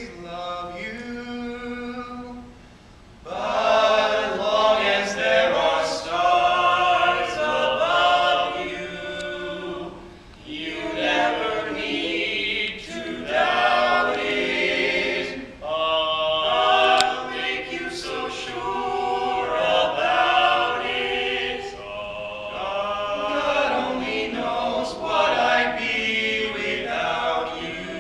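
Barbershop quartet of four male voices singing a cappella in close harmony. The song runs in phrases with brief breaks between them, and the singing swells louder about three seconds in.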